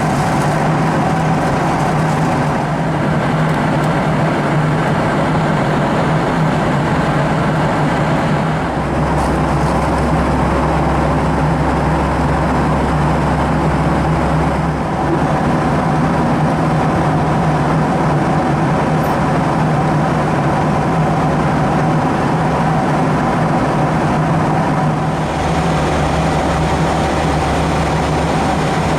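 Steady drone of a vehicle running, with a low hum that comes in for several seconds twice.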